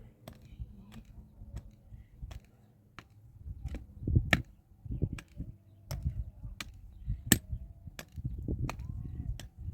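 A regular series of sharp knocks, about one every two-thirds of a second, many with a dull thud under them. The loudest strikes come about four and seven seconds in.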